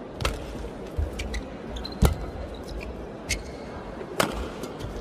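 Badminton rally: racquets striking the shuttlecock about once a second, five sharp hits with the loudest about two seconds in and just past four seconds. Short sneaker squeaks on the court mat come between the hits, over the hum of an arena hall.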